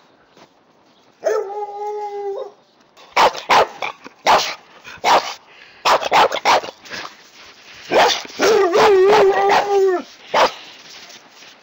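Dog barking in a quick run of loud, sharp barks, set between two drawn-out howls: a short one about a second in and a longer wavering one about eight seconds in, with one last bark after it.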